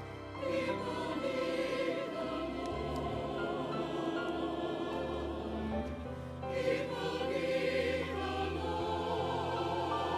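Choir singing a sacred piece with vibrato over sustained low instrumental accompaniment, with a short break between phrases about six seconds in.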